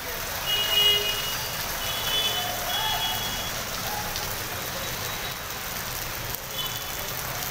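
A steady hiss of heavy rain and running floodwater on a waterlogged road. About four short, high-pitched vehicle beeps sound over it, at about half a second, two seconds, three seconds and six and a half seconds in.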